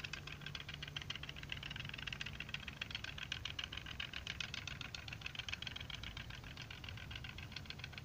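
Two wooden woodpecker toys on springs bouncing down a wooden pole. They make a rapid, continuous wooden clicking as each bird's collar catches and slips on the dowel.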